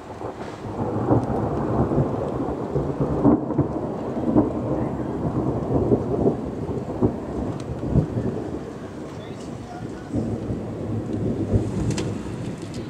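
Rolling thunder: a rumble that starts suddenly, crackles and booms for about ten seconds, and eases off near the end.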